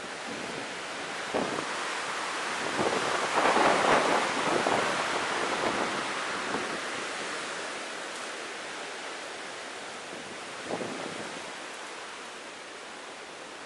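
Breath blown hard in repeated puffs into a tinder bundle holding a bow-drill ember, to bring it to flame. The blowing is strongest between about three and six seconds in, with one more short puff near the end.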